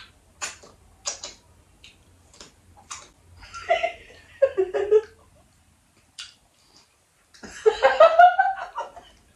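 A person laughing and giggling, with a few short light clicks in the first few seconds and a louder burst of laughter near the end.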